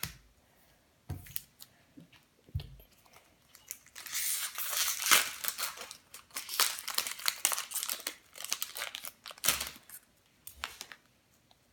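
Foil wrapper of a Pokémon Burning Shadows booster pack crinkling and tearing open by hand, for about five seconds in the middle, after a few soft knocks.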